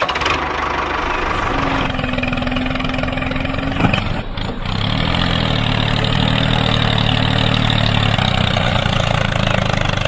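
Engine running steadily. It dips briefly about four seconds in, then settles into an even, low hum.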